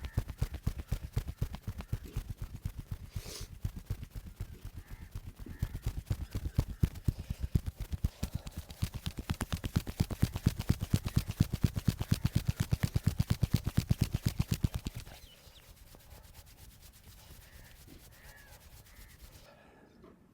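Rapid, rhythmic percussive massage strokes: hands chopping and slapping quickly on a person's back and head. The fast patter stops suddenly about three-quarters of the way through.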